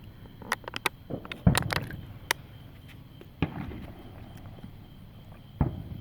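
Fireworks going off: a run of sharp cracks and pops, and three louder booms about two seconds apart. The loudest boom comes about a second and a half in.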